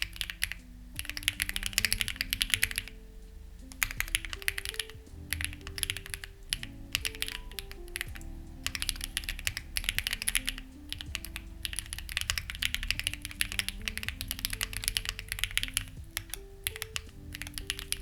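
Fast, continuous typing on a Lucky65 v2 mechanical keyboard fitted with stock, unlubricated HMX Ziwei switches and white-on-black CMK clone keycaps: a dense run of key clacks that pauses for about a second around three seconds in. Soft background music with held low notes plays under the typing.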